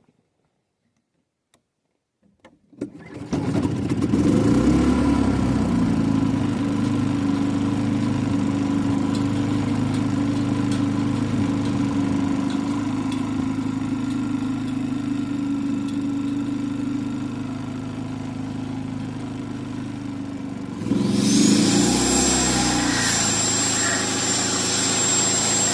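Small gasoline engine started about three seconds in and running steadily. About three-quarters of the way through it speeds up under load and a high whine joins it.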